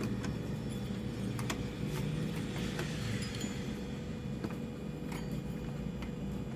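Scattered light clicks and clinks of small metal and plastic parts being handled as a stereo unit is put back together, over a steady low background hum.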